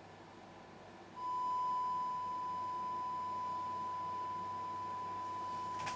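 A steady 1 kHz test tone, a pure beep with faint overtones, switches on abruptly about a second in and holds unchanged, over a low electrical hum and hiss.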